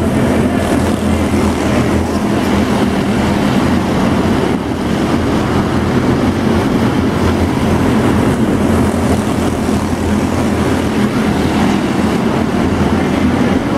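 Several small stock-style race cars running at racing speed around a tight indoor arena oval, their engines making a loud, steady din.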